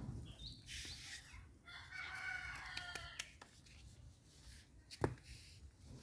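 A rooster crowing once, one drawn-out call about two seconds in, then a single sharp knock about five seconds in.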